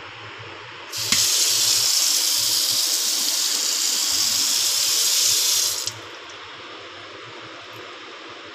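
Water running from a kitchen mixer tap into a stainless-steel sink: turned on about a second in, a steady rush for about five seconds, then shut off abruptly.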